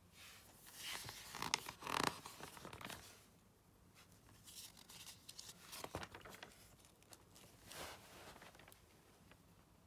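Glossy magazine pages rustling as they are handled and turned by hand. There is a longer crackling rustle over the first three seconds, then shorter rustles about halfway through and again later.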